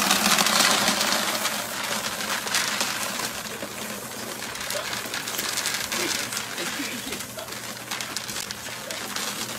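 Dry dog kibble pouring from a bag into a plastic storage bin: a dense rattling patter of pellets striking the plastic and each other, slowly growing quieter.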